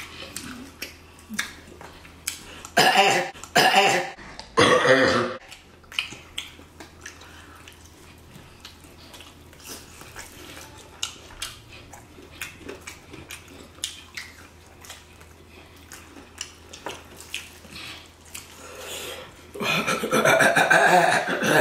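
Close-up chewing and wet lip-smacking on spicy chicken wings: a long run of small, quick clicks. About three to five seconds in there are three short, loud throat sounds like a burp or cough, and near the end a louder, longer voiced sound.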